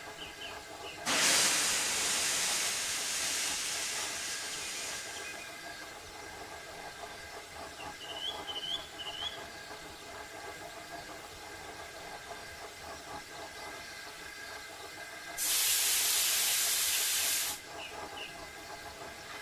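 Steam locomotive sound effects: a loud release of steam about a second in that fades away over several seconds, then a steady low running sound with a few short high chirps in the middle. Near the end comes a second burst of steam hiss, about two seconds long, that starts and stops abruptly.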